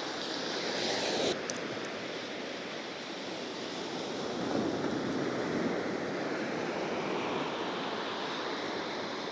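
Sea surf washing onto a beach, a steady rush that swells twice, with a little wind on the microphone.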